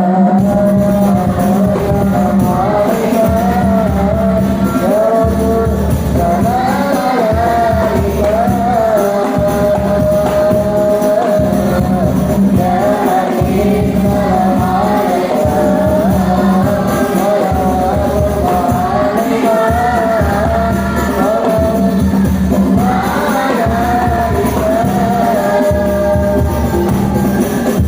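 A child's voice singing a devotional song in praise of the Prophet Muhammad, over music with a steady low accompaniment and percussion.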